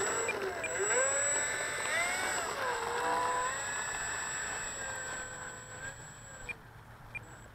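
Electric motor and propeller of a Dynam Hurricane foam RC warbird taxiing on grass, the whine rising and falling in pitch with the throttle over the first few seconds, then steadier, and dropping away near the end as the motor is throttled down.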